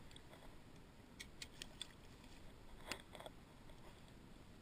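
Near silence broken by faint clicks from fishing gear being handled in a kayak: a quick run of four about a second in, then a slightly louder tap and a softer one near three seconds.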